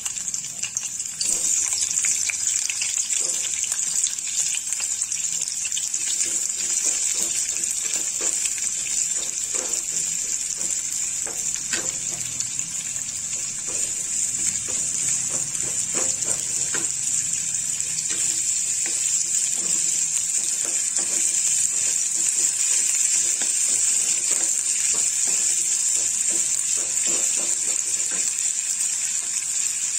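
Sliced onions sizzling in hot oil in a non-stick pan: a steady hiss, with light taps and scrapes from a wooden spatula stirring them.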